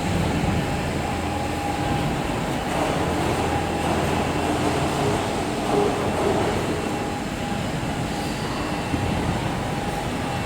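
Woodworking CNC machinery running in a workshop: a steady mechanical hum with a faint steady tone through it.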